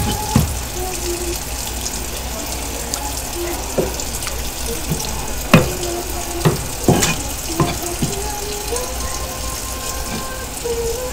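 Tap water running steadily into a steel sink, with several sharp knocks of a knife against the plastic cutting board as a sea squirt is cut open.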